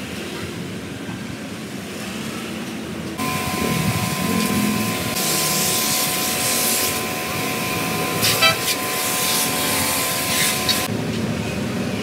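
Pressure-washer jet spraying water into a plastic car AC blower housing: a loud, steady hiss with a thin steady whine under it. It starts about three seconds in and stops about a second before the end.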